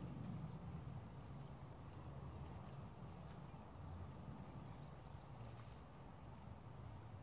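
Faint outdoor ambience: a steady high-pitched insect drone over a low rumble, with a few faint short chirps about four to five seconds in.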